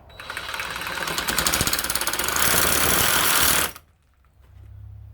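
Power saw with a coarse, rough blade cutting into the plastic housing of a female plug end clamped in a vise, a harsh fast-chattering cut that gets louder and then stops suddenly almost four seconds in. A faint low hum remains afterwards.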